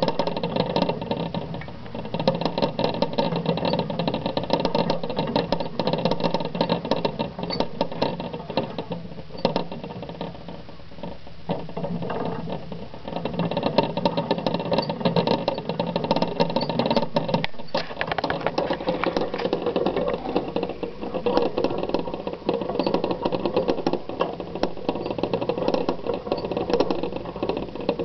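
A green wire exercise wheel spinning fast under two running pet mice, a steady, rapid metallic clicking and rattling that eases briefly about halfway through.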